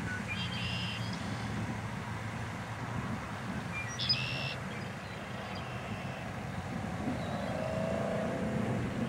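A male red-winged blackbird gives a short, high song about four seconds in, while puffed up with its red shoulder patches spread. Fainter high chirps come near the start, all over a steady low rumble.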